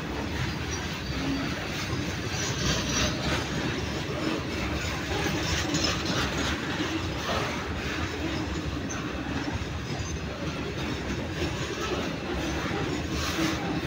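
Freight train of covered hopper wagons rolling past close by: the steady rumble of steel wheels on rail, with scattered clacks as the wheels cross rail joints.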